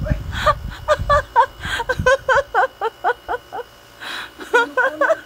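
A person laughing: a quick run of short 'ha-ha' bursts that stops about three and a half seconds in and starts again near the end. A low rumble underlies the first second.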